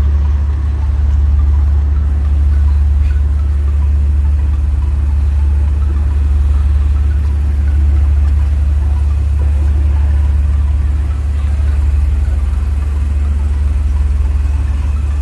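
Boat engine running steadily at idle, a constant low drone.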